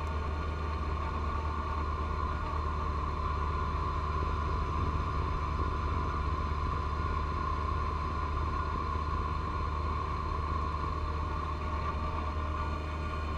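John Deere 1025R compact tractor's three-cylinder diesel running steadily under load while driving its 54-inch front snow blower through heavy wet snow. A steady high whine sits over the engine's low hum, with a slight swell in loudness midway.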